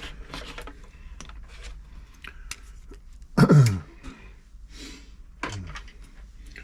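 Light clicks and knocks of tools and sewing-machine parts being handled on a workbench. About three and a half seconds in comes one loud, short sound that falls in pitch, and a fainter one like it comes near the end.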